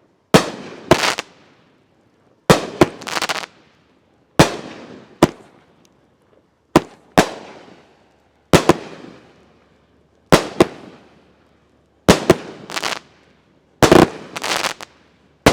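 16-shot 350-gram consumer firework cake (Dominator Piranha Panic) firing shot after shot, about one every two seconds. Each is a launch pop followed within about half a second by a hard, loud shell break. The breaks are heavier than usual for a cake.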